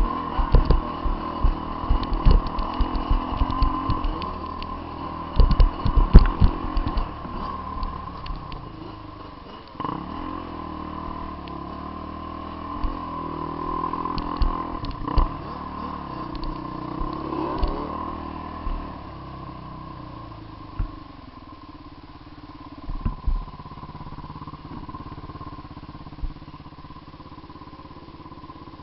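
Trail motorcycle engine running while riding a sandy dirt track, with knocks and rattles from bumps in the trail, thickest in the first several seconds. It gets quieter in the second half.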